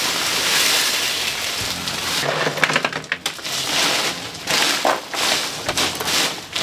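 Ice cubes poured from a bag onto a plastic-lined box of crawfish, rushing and rattling for about two seconds; then ice crunching and plastic bagging crinkling in uneven bursts as the ice is spread and pressed down by hand.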